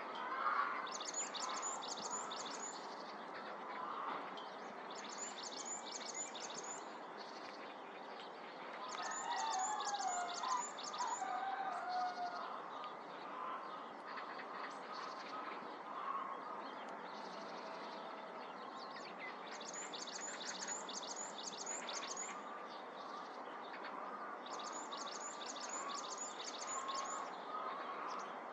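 Varied tit singing: five phrases, each a quick run of very high, thin notes, a few seconds apart. Lower warbling calls sound in the background, clearest around the middle.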